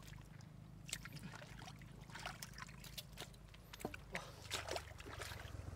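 Shallow water splashing and trickling in many small, irregular bursts, with a low steady hum underneath.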